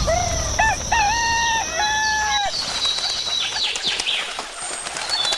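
A rooster crowing once, a few short notes running into a long held final note, followed by small birds chirping.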